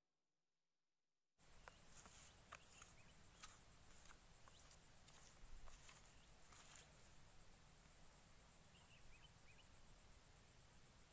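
About a second and a half of silence, then faint outdoor ambience: a steady, high, finely pulsing insect drone with scattered short clicks and a few faint bird chirps near the end.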